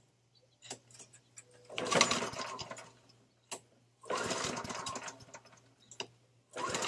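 Honda HRC216 mower engine pull-started three times with the choke on, its recoil starter cranking it over without it running: the fuel tap has been left off.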